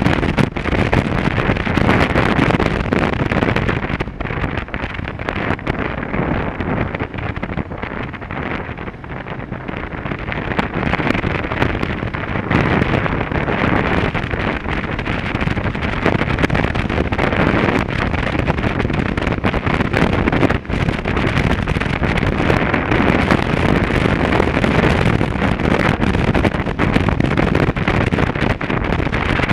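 Motorcycle riding at road speed: wind rushing over the microphone with the bike's engine running underneath. It eases off and goes duller for several seconds about four seconds in, then picks up again.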